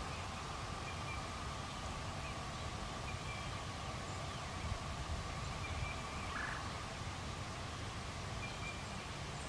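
Outdoor field ambience: a steady low rumble under a faint steady hum, with a few short, faint bird calls and one brief rapid pulsed call about six and a half seconds in.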